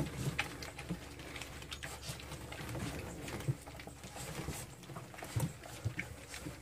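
A litter of Siberian husky puppies lapping and chewing soaked puppy chow from a dish: an irregular, busy run of small clicks and smacks.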